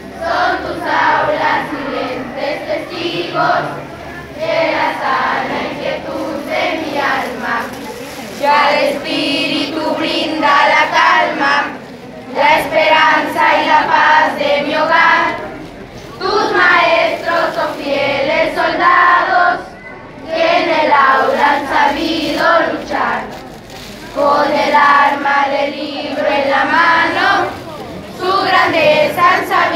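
A group of schoolchildren singing together as a choir, in phrases of a few seconds with short breaks between them.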